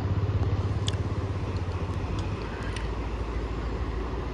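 An engine running steadily with a low, even throb that eases a little about two and a half seconds in.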